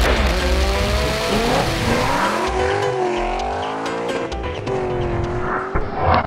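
Produced sound logo of car effects over music: tyre squeals that waver and glide in pitch, with a short loud burst near the end.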